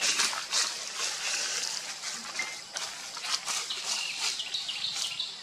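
Forest ambience with short high-pitched chirps and scattered clicks, the chirps coming in small stepped runs in the second half.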